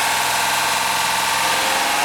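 2005 Honda Accord Hybrid's 3.0 L V6 engine running steadily, with a steady whine over it. The owner wonders whether the sound means an exhaust leak.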